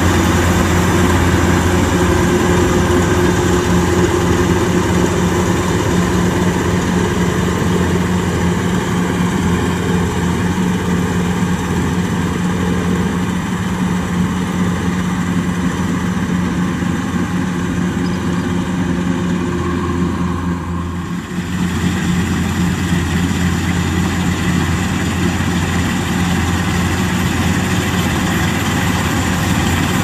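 Kubota DC-105X combine harvester's diesel engine running steadily under load as the machine cuts and threshes rice, a deep continuous hum. It dips briefly about two-thirds of the way through, then carries on unchanged.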